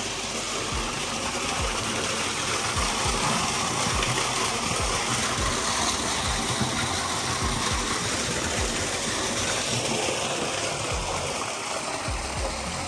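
Creek water running over the clay creek bed and pouring into a crack, a steady rushing hiss that eases a little near the end. Soft low thumps of footsteps sound through it.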